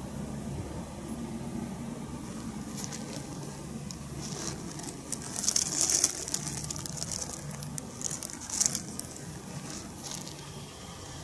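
Steady low outdoor rumble with several short crackling rustles, the loudest about six seconds in.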